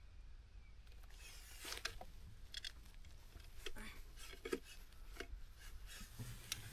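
Irregular small clicks and short rustles of handling, a dozen or so scattered through the middle, over a steady low rumble.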